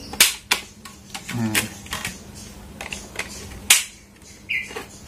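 Plastic fan blades being pushed and snapped into the plastic hub of a small hanging ceiling fan: a series of sharp irregular clicks and knocks, with a short squeak near the end.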